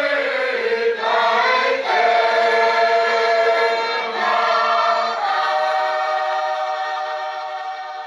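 Church choir singing a Tongan hymn in harmony, moving through several held chords, then holding one long closing chord that fades away near the end.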